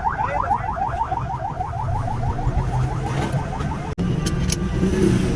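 An electronic warning siren makes rapid rising chirps, about eight a second, over a running vehicle engine. The chirping stops about three seconds in, and the engine hum carries on.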